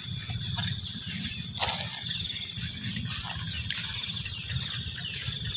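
Steady, high-pitched insect chorus over a constant low rumble, with a few short chirps and a brief knock about a second and a half in.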